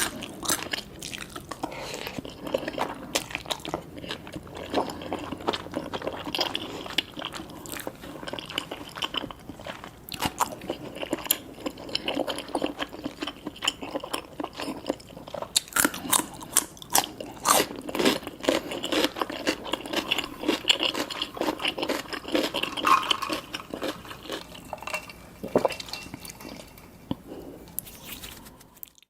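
Close-miked eating sounds: chewing and biting a mouthful of Samyang spicy cheese instant noodles with tobiko, a dense run of small wet crackles and clicks. It fades out near the end.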